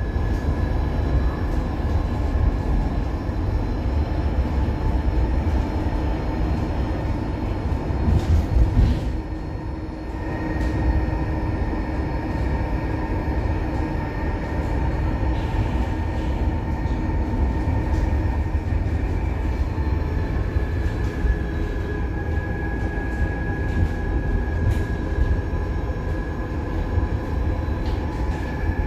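Ride aboard an electric public-transport vehicle: a steady low rumble with a thin electric motor whine that rises in pitch about ten seconds in and falls again later.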